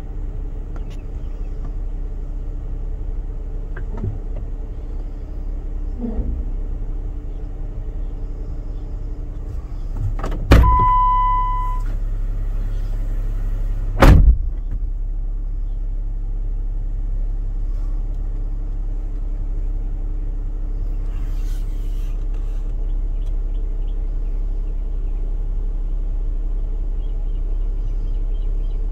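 Vehicle engine idling, heard from inside the cabin as a steady low hum. About ten seconds in there is a sharp knock followed by a short electronic beep, and another knock a few seconds later.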